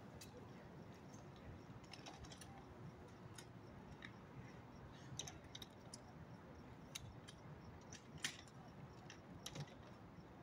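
Near silence: faint low background noise with scattered soft clicks and ticks.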